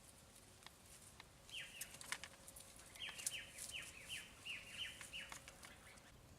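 Small bird calling faintly: one short falling chirp, then a quick run of about seven falling chirps, with light clicks and taps among them.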